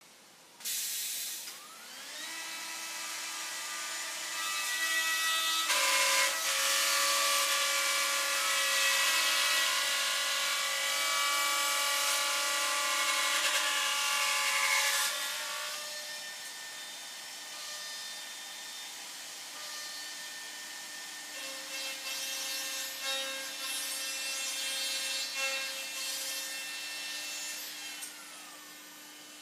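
Full House Machinery 484-CNC machine running a cycle: its motors whine up to speed about two seconds in, and loud cutting noise over the whine runs from about six to fifteen seconds in. The motors then run on more quietly and wind down near the end.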